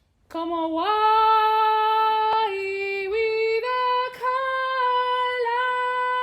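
Unaccompanied high female singing: a slow line of long held notes that step and slide between pitches, starting about a third of a second in.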